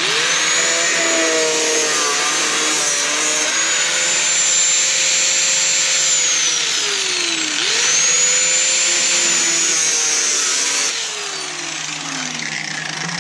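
Angle grinder with a thin cut-off wheel cutting out rusted sheet metal from a truck's inner rocker and cab corner, a loud high whine over grinding hiss. The pitch sags about seven seconds in and climbs back, then the tool is switched off near the end and winds down.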